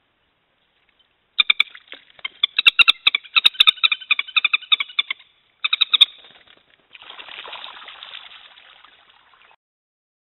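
Common moorhens calling in a rapid run of short harsh clucks, about four or five a second, with a few sharp knocks among them, while two birds scuffle on the floating wooden platform. After a brief gap, a rough rushing noise of flapping wings lasts about two and a half seconds and then fades.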